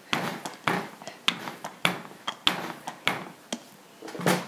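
Rolling pin rolling out puff pastry on a floured counter: a series of quick swishing strokes, about seven of them, with a louder one near the end.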